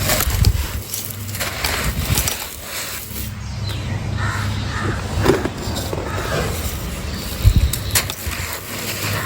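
Dry, brittle chunks of a baked sand-and-cement texture being crumbled by hand, giving irregular crunching and cracking with a sharper snap about three quarters of the way through.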